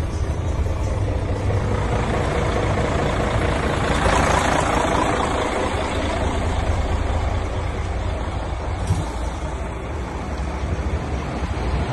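Mercedes-Benz Actros 4341's V6 diesel engine idling steadily, heard first from the cab and then from beside the truck. A broad rush of noise swells about four seconds in.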